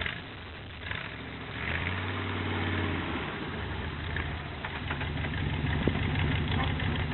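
An engine running steadily at a low, even idle, dropping out briefly near the start and then settling back in.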